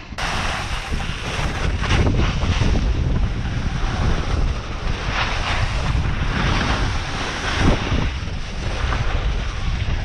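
Wind buffeting an action camera's microphone while a snowboard slides down the slope, the board's edges scraping across the snow in swells every couple of seconds as it turns.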